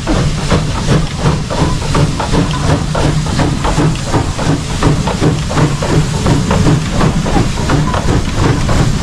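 Steam locomotive CPR 2023 passing close by, hissing steam over a quick, even beat as the engine, tender and coaches go past.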